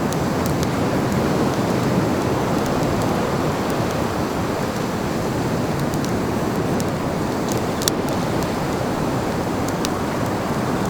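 Steady wash of ocean surf breaking on the shore, with a few sharp ticks scattered through it.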